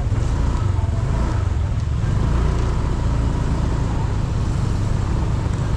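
Steady road noise of riding a motor scooter, dominated by a heavy low rumble of wind on the microphone, with engine and traffic sound underneath.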